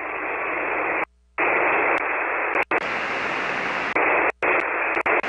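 Shortwave receiver hiss and static from an empty 40-metre SSB channel, cut off sharply above about 3 kHz: the other station has faded out. The hiss drops out briefly about a second in and again, more briefly, about four seconds in, with a few sharp clicks.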